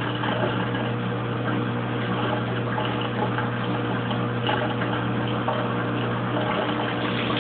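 Kenmore Oasis top-load washing machine's drain pump running steadily with a constant low hum, water draining through it during the drain stage of the wash cycle.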